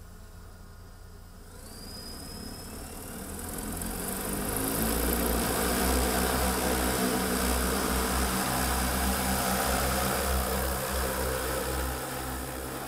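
EHang 184 passenger drone's electric rotors spinning up for takeoff, with a brief rising whine about two seconds in. The rotor noise builds to a loud, steady hum as it lifts off, easing slightly near the end.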